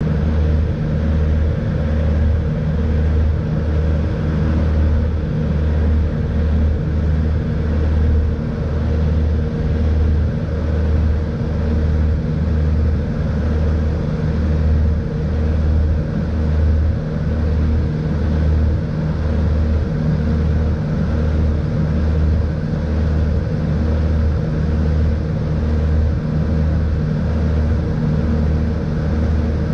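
Twin-engine light aircraft's piston engines and propellers running steadily, heard inside the cockpit, with a low throbbing beat about one and a half times a second. The beat is typical of the two propellers turning out of sync, what the uploader calls slipping propellers.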